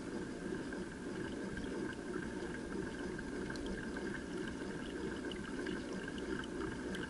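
Water gurgling and sloshing along the hull of a pedal boat under way, with a faint steady whine from its chain-and-shaft propeller drive.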